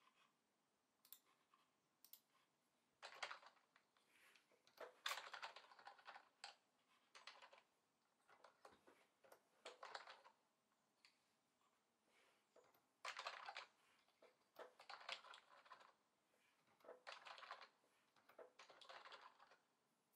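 Logitech MK850 wireless keyboard being typed on in about eight short bursts of rapid random keystrokes, each a second or so long, with pauses in between. The typing is fairly faint.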